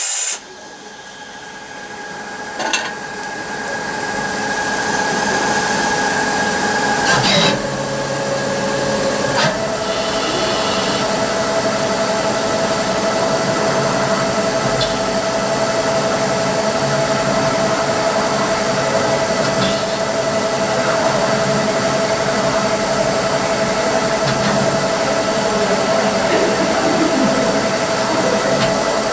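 Nomura DS 10EX3 automatic lathe cutting a part: steady machine noise with a whine that grows louder over the first few seconds. The pitch drops about seven seconds in and settles on a new steady tone about two seconds later.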